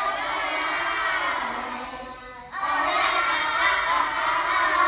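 A group of young children singing a song together, with a short break about halfway through before they come back in loudly.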